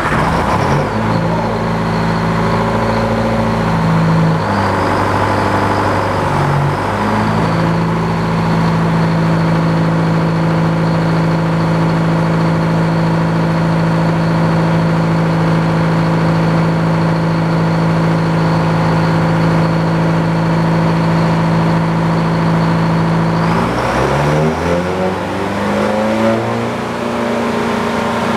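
Engine-driven sawmill running under load while sawing a board off a log: a steady engine note with a constant high whine. About 24 seconds in, the engine pitch drops and then climbs back up.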